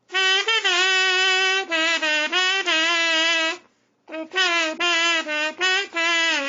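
Sing-A-Tina, a kazoo-type instrument, played by humming a tune into it. It gives a buzzy melody in short notes, in two phrases with a brief pause a little past halfway.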